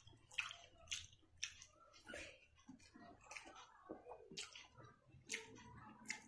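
Eating by hand: chewing, and fingers mixing rice into egg curry on a steel plate. Short, sharp clicks come about once a second.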